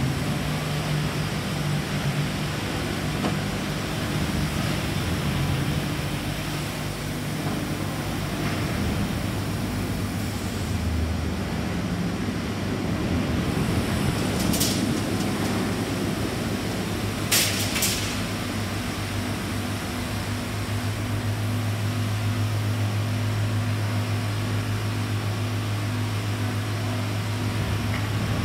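Teksam SPSM1600 manhole-making machine running with a steady low mechanical hum, which deepens and strengthens about two-thirds of the way through. Two brief high hisses come a few seconds apart in the middle.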